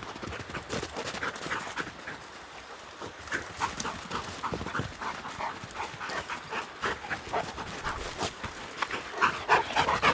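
Dogs panting hard, quick breaths about three a second, loudest near the end.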